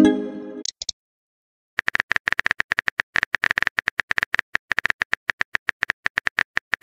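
Chat-app sound effects: a short chime as a message pops up, then after about a second of silence a quick, even run of keyboard-typing clicks as the next message is typed.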